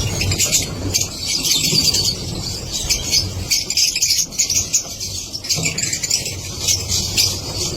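A colony of lovebirds chattering together: many overlapping high chirps in a dense, unbroken chorus.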